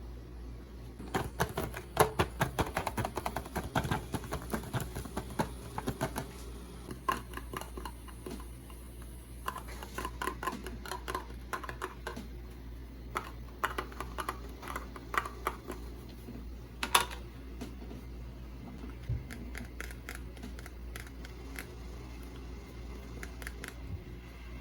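Hands handling small plastic items and packaging: a quick run of small clicks, taps and light rustles over a low steady hum. They thin out about two-thirds of the way through, with one sharper click just before.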